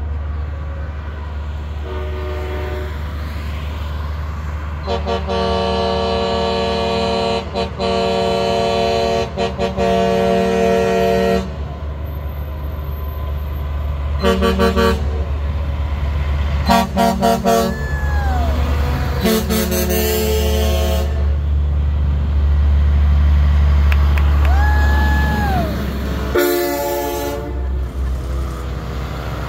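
Truck air horns blowing as lit trucks roll past: one long blast lasting about six seconds, then several shorter blasts, over the steady low rumble of diesel truck engines. Two short tones slide up and back down in between.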